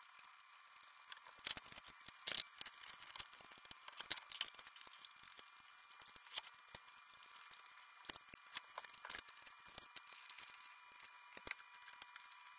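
Scattered light clicks, taps and knocks of cabinet hardware being fitted by hand: metal pulls, screws and a screwdriver against the wooden drawer fronts and doors, with the sharpest knocks about two seconds in. A faint steady hum runs underneath.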